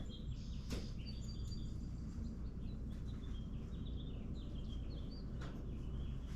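Small birds chirping over a steady low background rumble, with a light click about a second in and another near the end.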